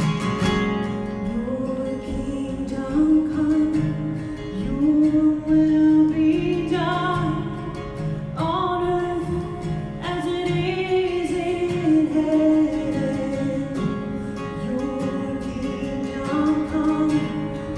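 A worship song sung in long held notes over strummed acoustic guitar.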